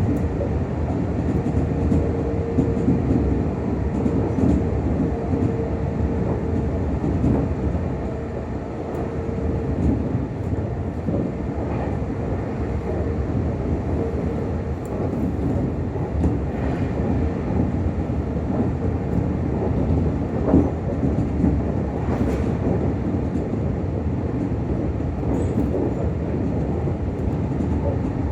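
Meitetsu 6000 series electric commuter train running, heard from inside the car: a steady rumble of wheels and running gear with occasional rail-joint clicks, and a steady hum for the first ten seconds or so.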